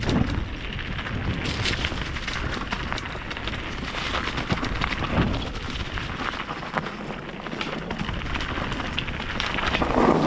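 Mountain bike riding fast down a trail: a steady crackling rush of tyre and trail noise, broken by many small knocks and rattles.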